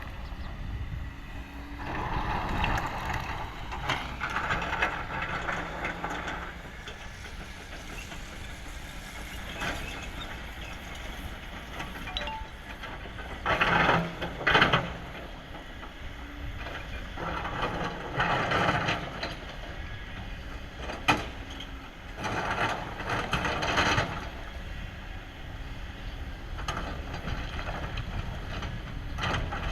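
Kobelco excavator's diesel engine running steadily while it digs rock. Several louder bursts of scraping and grinding come through, the loudest about halfway, with one sharp knock about two-thirds of the way through.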